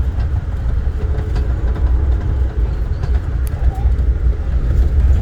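Amtrak Carolinian passenger train running along the track, heard from on board: a steady low rumble with a few faint clicks.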